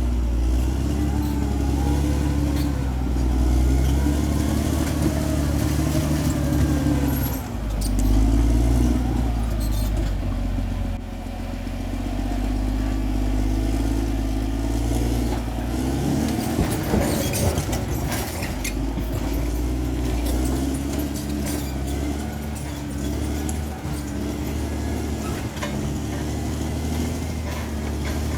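Bulldozer's diesel engine working under load, its pitch rising and falling as the load changes, with a spell of clanking and rattling a little past halfway.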